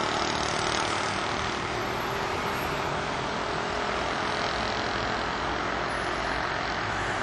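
Steady street traffic noise: a continuous din of passing cars and motorbikes with a low rumble.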